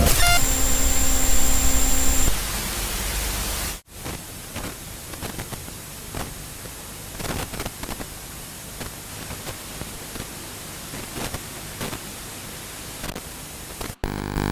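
Static noise effect: a loud low rumble with a steady buzzing tone for about two seconds over dense hiss, which cuts off abruptly near four seconds in, giving way to quieter, crackling static.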